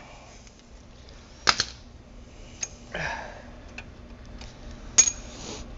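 A few sharp metallic clinks and knocks of hand tools and parts striking metal, spaced a second or more apart; the loudest, about five seconds in, rings briefly.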